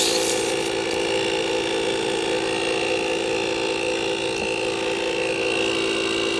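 Small portable air compressor running steadily with a high whine as it inflates a freshly plugged SUV tyre.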